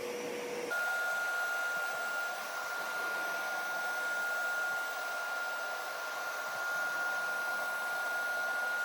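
Hoover PowerScrub Deluxe carpet cleaner running, its motor giving a steady whine over a hiss of suction; about a second in the whine jumps to a higher pitch and holds.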